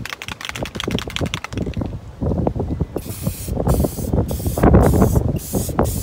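Aerosol spray can of Rust-Oleum matte clear coat sprayed in about half a dozen short hissing bursts starting about halfway in, over a steady rumble of wind on the microphone. The first couple of seconds hold a fast run of clicks.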